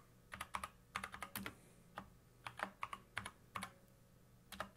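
Typing on a computer keyboard: a run of quick, irregular key clicks, then a short pause and two last clicks near the end.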